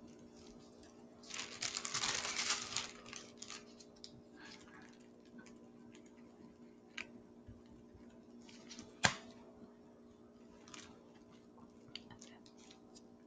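Faint handling sounds of toothpicks stirring blood drops on plastic blood-typing slides with a nitrile-gloved hand: a scratchy stretch about a second in, scattered small ticks, and one sharp click about nine seconds in, over a steady low hum.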